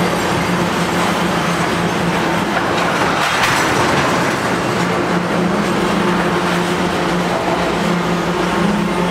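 CN freight train of tank cars rolling slowly on the rails, giving steady wheel-and-rail noise over a steady low drone. A brief louder rush comes about three and a half seconds in.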